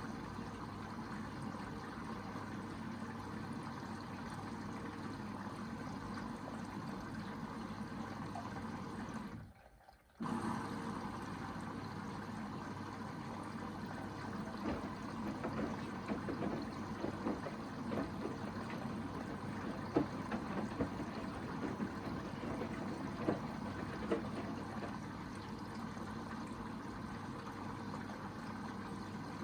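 Hoover VHD 9163 ZI washing machine in its first rinse: water running and sloshing in the drum, a steady rush that cuts out for a moment about ten seconds in, then turns more uneven and splashy.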